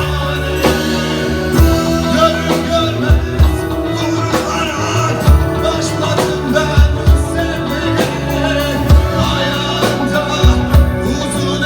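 Rock music with a steady drum beat, sustained bass notes and guitar.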